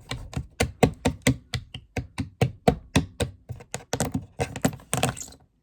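A clicky fidget toy being clicked over and over, in quick, uneven clicks about five or six a second.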